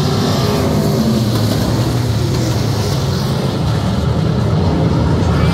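A field of street stock race cars running hard together at racing speed, their engines blending into one loud, steady drone.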